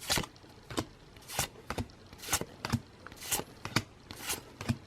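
Pokémon trading cards being flipped through one at a time, a short swish as each card slides over the next, about two a second.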